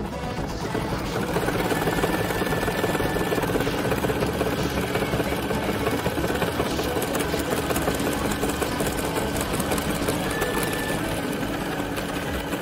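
Computerized embroidery machine stitching a seam through layered fabric, its needle going in a fast, steady run of strokes.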